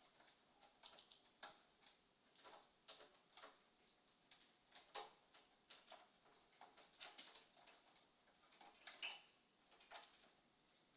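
Faint, irregular light clicks and ticks, a few each second, with a somewhat louder cluster about nine seconds in.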